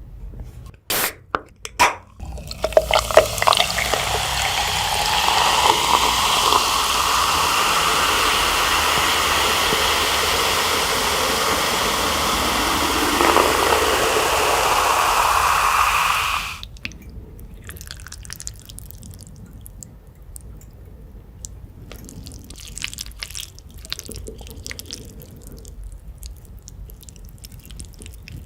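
Water running into a container for about fourteen seconds, its pitch rising steadily as the vessel fills, then cut off suddenly. A few clicks come just before it, and faint taps and crackles follow it.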